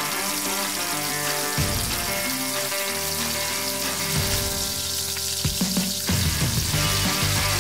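Breaded mac and cheese balls deep-frying in hot oil at about 350°F, a steady sizzle of bubbling oil. Background music plays over it.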